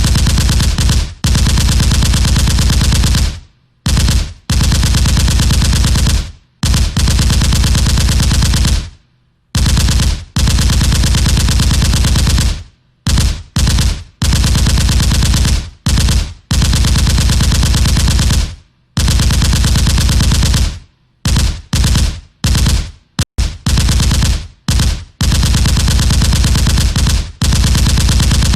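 Automatic gunfire: repeated bursts of rapid shots, some about a second long and others up to three seconds, broken by short pauses.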